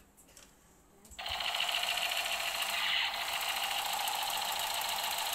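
Toy machine gun's firing sound effect: a loud, fast, steady rattle that starts about a second in.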